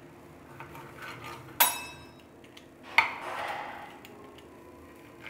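Steel wheel of a pizza cutter knocking against a wooden board as it cuts through a log of dough, twice. The first is a sharp clink with a short ring about one and a half seconds in; the second, about three seconds in, is followed by a brief rasp.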